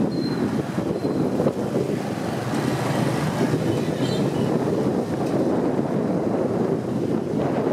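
Wind rushing over the microphone of a moving motorbike, with the bike's engine and road noise underneath as a steady, loud rumble.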